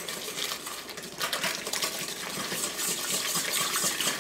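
Wire whisk stirring a thin milk, sugar and flour mixture in a stainless steel mixing bowl: quick wet sloshing with the wires scraping and clinking against the metal, getting busier about a second in.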